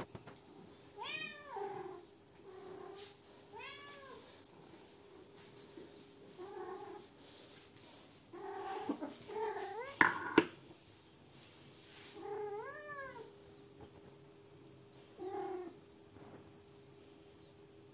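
A domestic cat meowing repeatedly, about seven drawn-out calls that rise and fall in pitch, spaced a second to a few seconds apart. A sharp click comes about ten seconds in.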